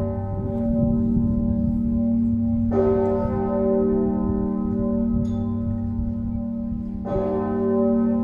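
Osanna, the largest bell of Leipzig's Nikolaikirche, rung alone with its strike note g°. The clapper strikes twice, about four and a half seconds apart. Each stroke is a deep, many-toned bell note whose hum rings on between strokes.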